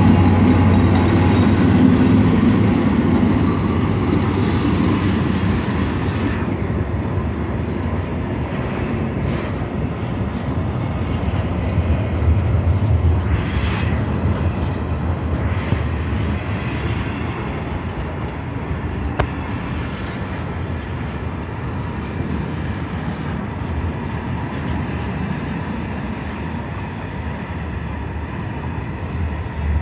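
Freight train passing close by. For the first few seconds its TCDD DE 24000 and DE 36000 diesel-electric locomotives' engines are heard running as they go past. Then the flat wagons loaded with tank containers roll by with a steady rumble and occasional clacks of the wheels, slowly growing fainter.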